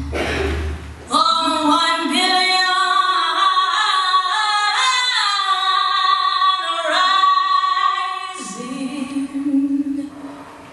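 Backing music with a bass line drops out about a second in. A woman's solo singing voice takes over, holding long notes that slide and waver with little accompaniment. Near the end it gives way to a lower held note.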